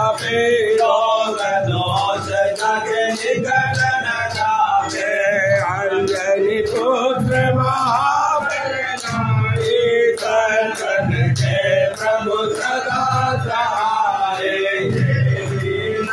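Male voices singing an aarti to Hanuman together, over a steady beat of sharp percussive strikes.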